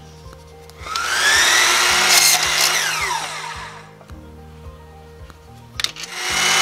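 Electric miter saw starting up with a rising whine about a second in, cutting through half-inch PVC pipe, then winding down with a falling whine; the saw starts up again just before the end.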